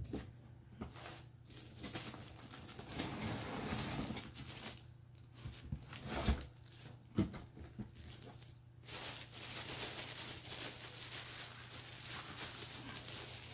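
Clear plastic bag crinkling and rustling in stretches as a cast iron Dutch oven is handled and unwrapped, with a couple of short knocks about halfway through.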